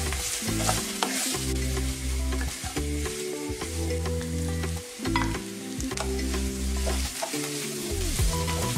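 Diced peppers and onions sizzling in oil in a frying pan, stirred with a wooden spatula that scrapes and knocks against the pan now and then. Soft background music runs underneath.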